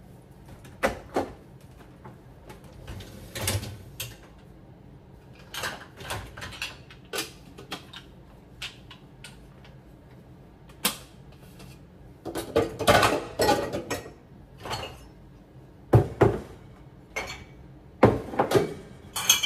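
A dishwasher being unloaded: the door and rack opening, then glass jars and cups clinking and knocking as they are lifted out and set down, in a run of separate sharp clatters that is busiest about two-thirds of the way in.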